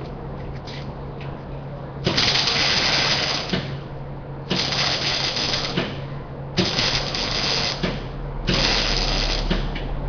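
Electric arc welder crackling in four short bursts, each about a second and a half long with brief pauses between: a run of short welds or tacks.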